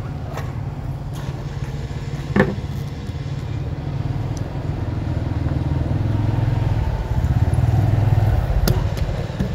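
Motorbike engine running at low revs, getting louder in the second half, with one sharp click about two and a half seconds in.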